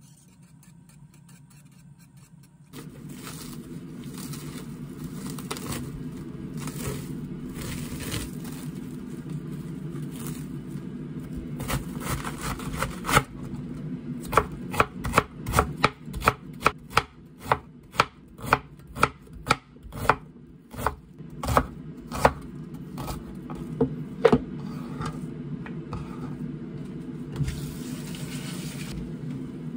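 Kitchen knife shredding a head of cabbage on a wooden cutting board. Softer slicing strokes come first, then the blade knocks on the board about twice a second for several seconds.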